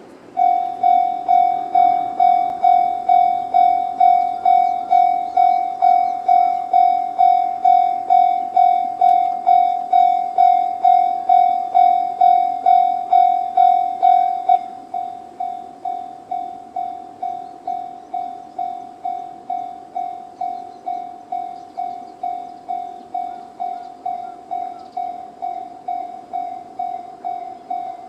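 Japanese railway level-crossing alarm with the JR standard electronic tone, a fast repeating ding-ding-ding. About halfway through it drops to a noticeably quieter level and keeps ringing.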